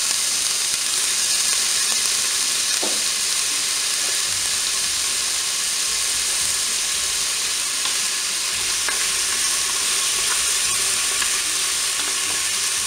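Frozen chopped onions sizzling in hot olive oil in the preheated bowl of a Cookeo multicooker on its browning setting: a steady hiss. Near the end they are stirred with a wooden spatula.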